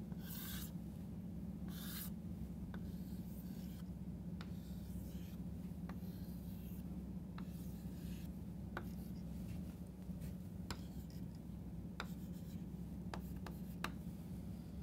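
Chalk scraping across a chalkboard as lines and small circles are drawn, with short sharp taps of the chalk against the board every second or two. A steady low hum runs underneath.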